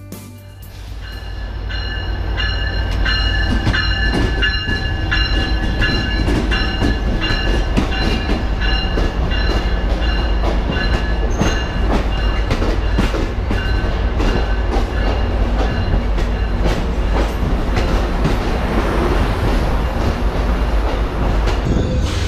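A passenger train running on the rails. It is a heavy rumble with repeated clicks and knocks from the wheels and track, and a high steady ringing tone through much of the first two-thirds. It grows louder over the first few seconds, then holds steady.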